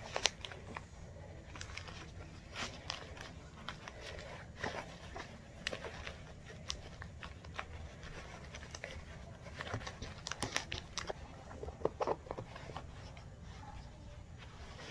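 Rustling and crinkling of a stiff embroidered fabric bag, layered with stabilizer and batting, being handled and worked as its corners are pushed out. Irregular small crackles and taps, busiest about ten to twelve seconds in.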